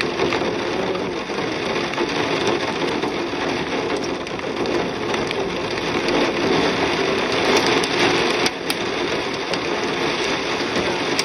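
Steady rain falling on a corrugated metal roof, a dense patter of drops.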